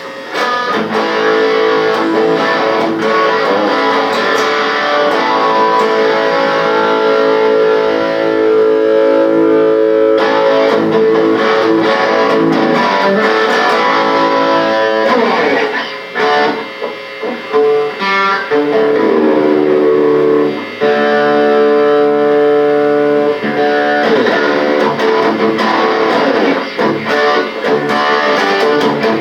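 Guitar playing long, ringing chords and held notes, starting abruptly. Just past the middle, the playing breaks up briefly with a few sliding notes before the held chords return.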